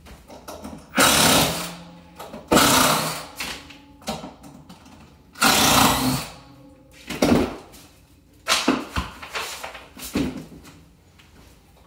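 Cordless drill running in a series of short bursts, each about a second long, with brief pauses between them.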